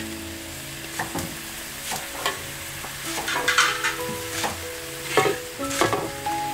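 Utensil scraping and stirring in a cooking pan: a run of irregular scrapes and clinks over soft background music.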